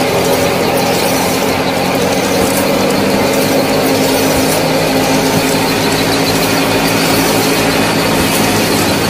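Miniature model thresher powered by a small motor, running steadily with a constant hum and a few faint clicks.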